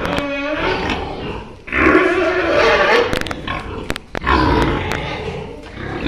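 Domestic pigs squealing and grunting: a short pitched call at the start, then two long, loud, harsh calls about two and four and a half seconds in.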